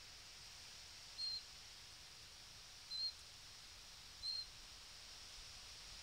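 A small bird repeating a single short, high, thin call note three times, about every second and a half, over a faint steady hiss.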